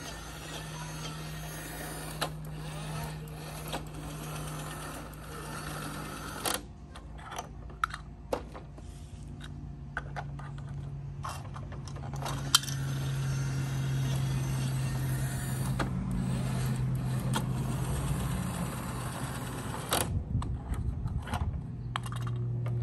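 Plastic toy garbage truck and trash bins clicking and knocking as they are handled and dumped, over a steady low hum that drops slightly in pitch and gets louder about halfway through.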